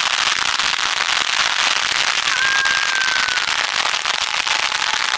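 Ground fountain fireworks spraying sparks with a steady crackling hiss. A brief, faint high whistle sounds about two seconds in.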